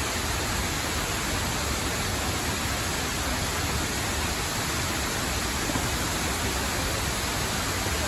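Shiraito Falls: many thin cascades pouring down a wide rock wall into a pool, with the rapids of the stream below, making a steady, even rush of falling water.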